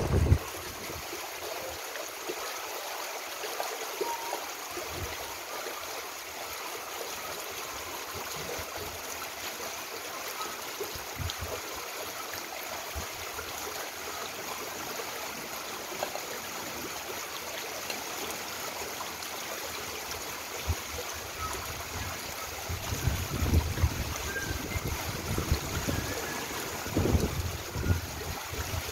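Brown floodwater rushing down a flooded road in a steady, even rush of running water. In the last several seconds, gusts of wind rumble on the microphone.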